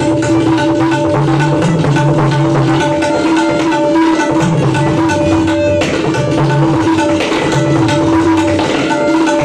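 Tabla playing a fast rela in tishra jati (strokes grouped in threes): dense rolling strokes on the treble drum, with bass strokes on the bayan that bend in pitch. A harmonium holds steady sustained notes underneath as accompaniment.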